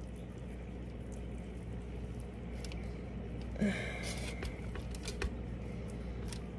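Hands squishing and pressing soft breaded chicken fingers on a foil-lined baking sheet, with small crinkles and taps from the foil and a brief louder rustle a little past the middle, over a steady low hum.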